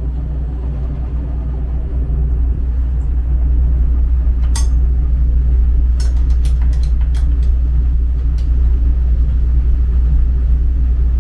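Steady low rumble of a ship's engines and machinery, with a few sharp metallic clinks from hand tools on metal fittings: one about four and a half seconds in and a quick cluster a little later.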